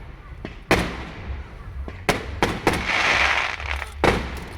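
Fireworks going off: a sharp bang about a second in, a quick run of three bangs around two seconds in followed by about a second of hiss, and another bang near the end.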